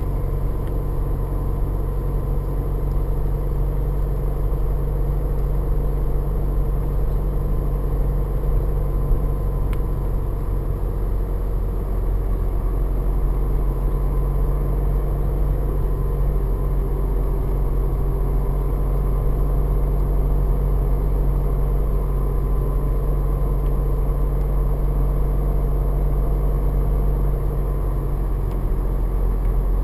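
A car driving along a tarred road, heard from inside the cabin: a steady low rumble of engine and tyre noise.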